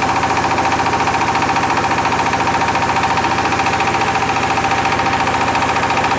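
MAKTANI MT212 rice milling machine running steadily under load, milling paddy into white rice: a loud, even mechanical hum with a strong high tone and a rapid, regular pulsing beat.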